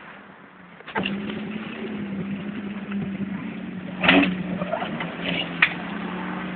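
Off-road buggy's engine running, suddenly louder about a second in and then held steady under load. A louder rough burst comes about four seconds in, followed by a single sharp click.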